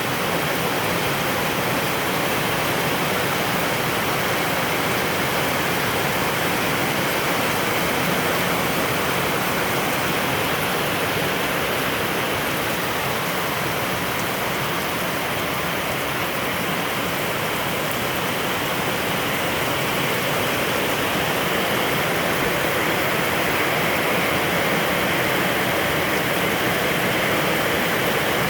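Rain falling steadily, a dense, even hiss with no let-up.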